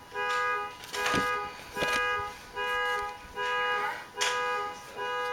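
Car alarm sounding: a steady electronic tone repeating in even pulses, a little more than once a second.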